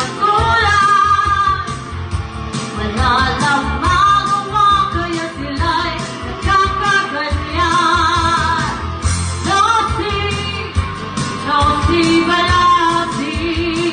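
Tagalog-language pop song: a sung vocal with vibrato over a band with a steady bass beat.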